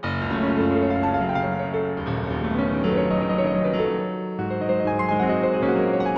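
Solo piano playing a slow impressionistic piece, with new chords struck about every two seconds and left to ring.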